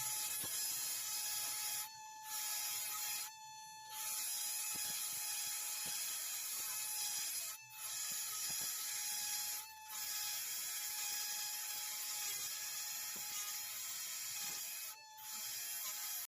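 Small power tool running with a steady whine and hiss. It cuts out abruptly for brief moments several times.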